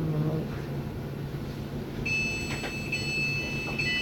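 Passenger train standing at a station platform: its low hum dies away in the first half second, then about two seconds in the door warning starts, a high electronic beeping tone repeating in short pulses.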